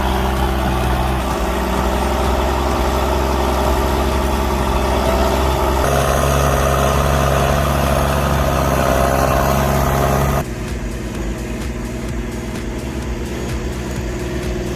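Heavy diesel engine running steadily. About ten seconds in the sound cuts abruptly to a quieter, pulsing engine sound.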